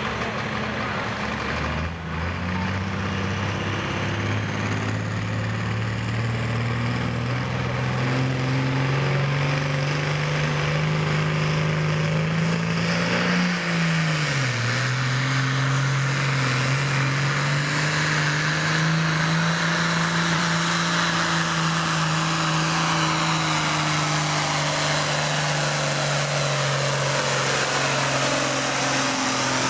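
Ford pulling tractor's diesel engine at full throttle, dragging a weight-transfer sled under heavy load. The engine note climbs steadily, drops sharply about 14 seconds in, then climbs back and holds, with a high whine rising over the first several seconds.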